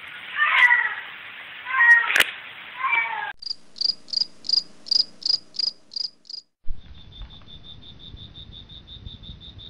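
Domestic cat meowing three times, with a sharp click just after the second meow. Then a run of high-pitched chirps, about three a second, gives way to a faster, even pulsing of high chirps, about six a second.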